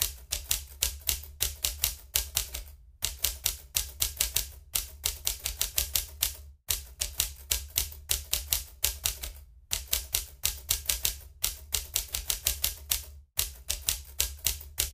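Typewriter sound effect: rapid key clacks, about five a second, in runs broken by short pauses, with a low hum under them.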